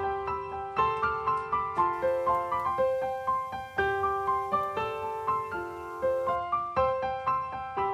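Background music: a gentle solo piano piece with notes struck in a steady, even rhythm.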